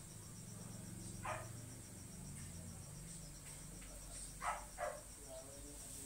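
Crickets chirping in a fast, steady, high trill. A few short scratchy strokes of a marker on a whiteboard come about a second in and twice near the end.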